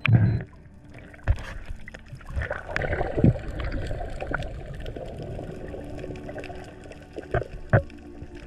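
Underwater water noise as a freediver swims down over a coral reef: water rushing and gurgling past the camera, with a strong surge at the start and scattered clicks and pops, plus a few louder thumps.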